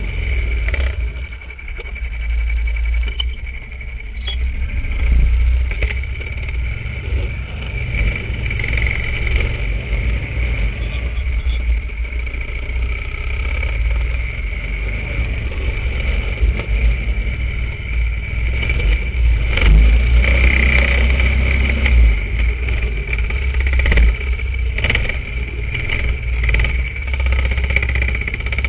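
Vintage snowmobile engine running continuously under way, its level swelling and easing a little as the sled rides through the snow.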